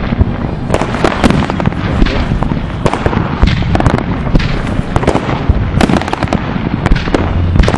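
Aerial fireworks going off: a dense, unbroken run of bangs and crackles, several a second, from rockets bursting overhead.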